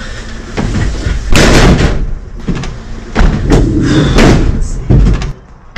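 Several heavy slams and thuds of a police van's doors being shut, the loudest about a second and a half in and again between three and four and a half seconds in, with a low rumble under them.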